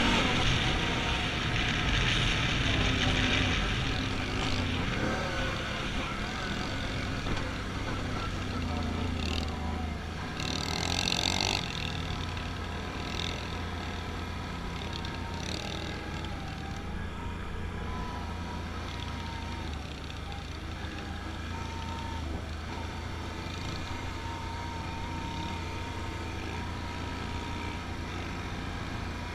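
ATV engine running steadily at riding speed, with wind rushing over the rider-mounted microphone that is strongest in the first few seconds. A short loud rush of noise comes about ten seconds in.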